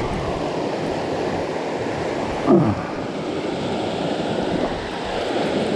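Mountain trout creek rushing over rapids and boulders, a steady rush of water. About two and a half seconds in, a short sound falling in pitch rises briefly above it.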